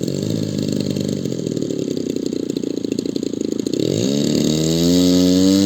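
Engine of a radio-controlled scale Hawker Hurricane model, its pitch wavering up and down. About four seconds in it drops low, then climbs to a steady, louder, higher note as the throttle is opened.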